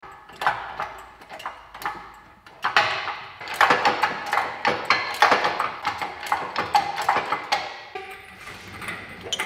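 Irregular metallic clanks, clinks and rattles as a Subaru STI engine is lifted out of the engine bay on the chain of a hand-pumped hydraulic engine crane. The knocks grow busier and louder about two and a half seconds in.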